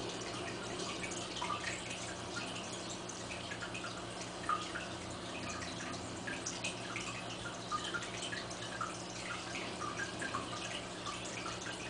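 Aquarium water trickling and bubbling: many small irregular drips and plops over a steady low pump hum.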